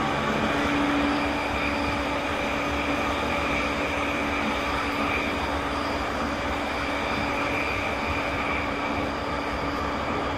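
Running noise of a JR East E217-series electric train, from motor car MoHa E217-31, travelling at a steady speed: an even rumble of wheels on track with several steady humming tones that hold their pitch.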